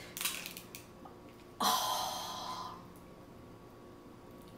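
A few sharp crunching clicks of king crab shell being cut, then about one and a half seconds in a sudden loud breathy sound from the eater, about a second long and fading away.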